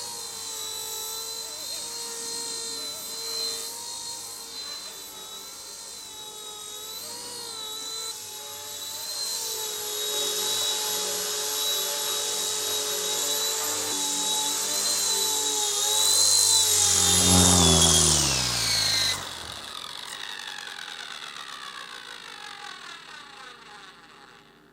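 Small RC Era C138 Bell 206 scale RC helicopter's electric motors and rotors whining steadily in flight. About three-quarters of the way in, after landing, the whine falls in pitch as the rotors spool down, then cuts off and fades away.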